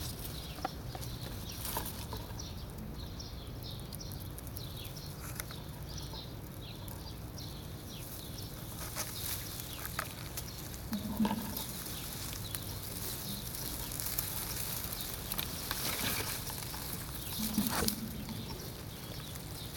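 Outdoor ambience of small birds chirping repeatedly, with faint crackling and rustling in grass, and two short louder low sounds, one near the middle and one near the end.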